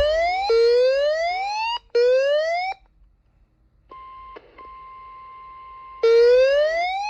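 Electronic siren sounding in short rising whoops, each cut off sharply, then a brief silence and a much quieter steady tone near 1 kHz. About six seconds in, a loud slow rising wail begins.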